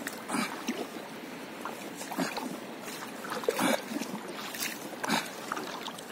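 Stand-up paddleboard paddle strokes in calm sea water: a short splash and gurgle about every one and a half seconds.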